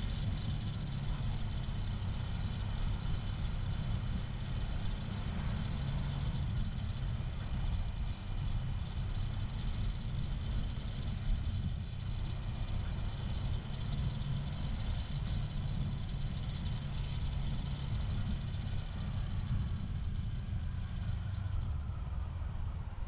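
Kawasaki Versys 250 motorcycle running at a steady cruise, its engine hum mixed with a constant low wind rumble on the microphone.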